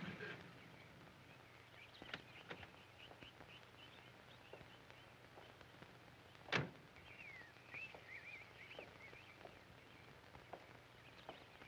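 Car door slammed once, sharply, about six and a half seconds in, with faint footsteps on a cobbled driveway and birds chirping around it. A low car engine hum cuts off just at the start.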